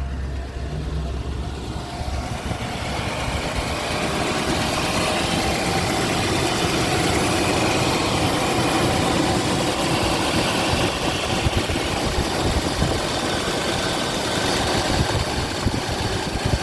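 Mercedes-Benz W126 500 SE's V8 engine idling on LPG, running evenly with no misfire, the sign that the fix to its gas system has worked. It gets louder a few seconds in.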